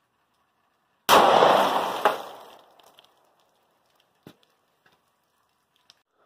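A single 9mm pistol shot from a full-size SAR B6, fired into water-filled milk jugs, going off about a second in and trailing off over about a second and a half, with a second short sharp crack about a second after it. A small knock follows near the end.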